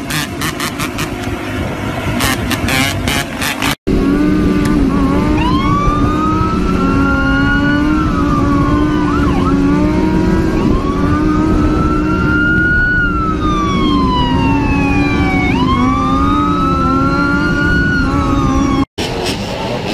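Police car siren in a slow wail, rising and falling about every five seconds, over a steady engine drone. For the first few seconds, before a cut, a motorcycle engine and road noise with rapid crackling.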